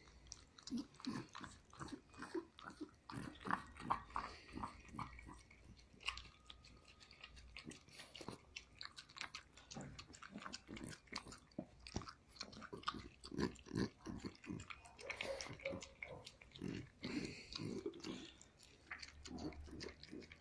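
French bulldog licking and chewing ice cream from a glass dish: a steady run of quick, irregular wet smacks and chewing sounds.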